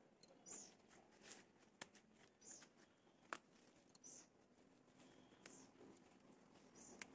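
Near silence: faint short high chirps recurring about once a second or so, with a few faint clicks from leaves being handled.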